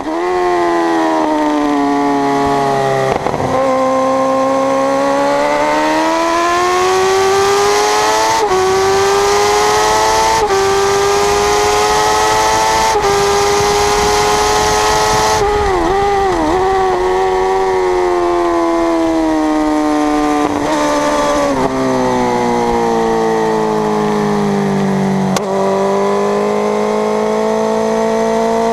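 1000 cc superbike engine at race pace, heard from on board: it revs up through the gears with a sudden drop in pitch at each upshift, about four times in the first half. In the middle and later it falls and wobbles through downshifts into corners, then climbs again near the end. Wind rushes on the microphone along the straight and eases off about halfway through.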